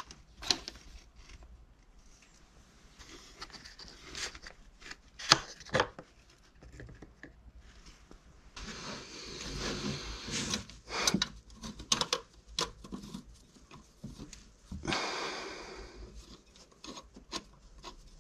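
Hand-tool and part-handling noises on an Audi 2.0 FSI engine during an oil change: scattered clicks and knocks as the plastic oil filler cap is taken off, then a socket wrench scraping and clicking as the oil filter housing cover is loosened. There are two longer scraping stretches, about halfway through and again about three quarters of the way through.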